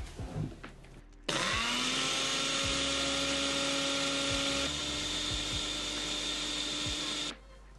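Countertop blender motor grinding granulated erythritol into powder. It starts with a quick spin-up to a steady, high whirr, shifts up slightly in pitch about halfway through as the load eases, and cuts off abruptly near the end. A few light knocks come before it starts.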